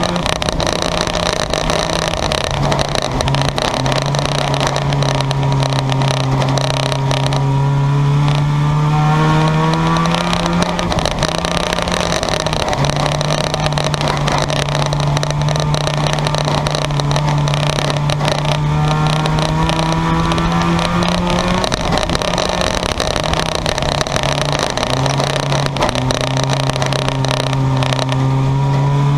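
Junkyard race cars' engines running hard around the track: a loud, continuous engine drone, with several engine notes overlapping and pitches rising and falling as cars pass.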